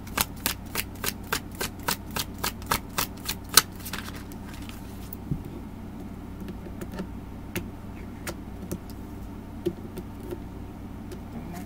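Tarot deck being shuffled by hand: a quick even run of crisp card slaps, about three a second, ending with a sharper slap about three and a half seconds in. After that, a few scattered light taps as cards are handled and laid on the table.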